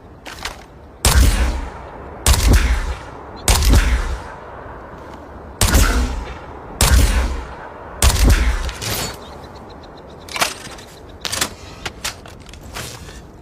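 The Resonator weapon sound effect: six heavy, booming shots about a second apart, each with a ringing tail, followed by several lighter, sharper clicks and hits.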